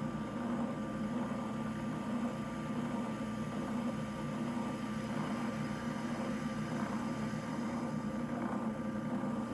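Spindle sander motor running with a steady hum while a wooden board's edge is sanded down to traced lines.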